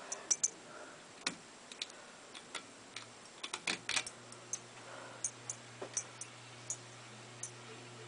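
Westinghouse Casanova 42-inch ceiling fan running, with irregular light ticks and clicks, a cluster of louder clicks about three to four seconds in, and a steady low motor hum that comes in about three seconds in.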